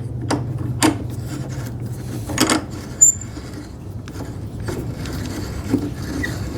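A clamp being loosened and taken off a wooden cabinet: scattered short knocks and clicks of the clamp against the wood, the sharpest about three seconds in, over a steady low hum.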